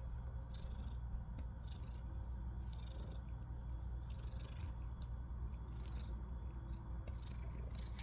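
A cat purring steadily, a continuous low rumble: the contented purr of a cat wanting affection.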